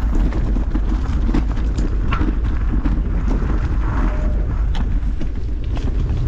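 Mountain bike riding over rough trail: a steady rumble of tyres and wind buffeting the microphone, with many sharp rattles and clicks from the bike.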